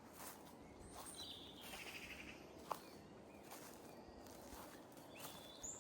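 Faint footsteps on the woodland floor, with short high bird calls twice and a single sharp click about halfway through.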